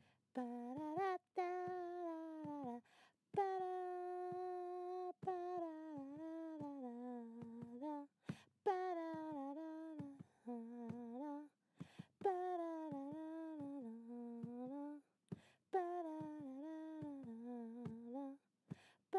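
A person humming a wordless tune in phrases of a few seconds each, with short breaks between them and a slight waver on the held notes.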